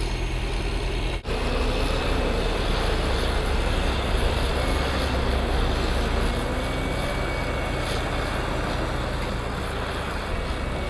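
Refuse truck's engine running steadily while the truck tips its load, a loud, dense rumble with a brief break about a second in.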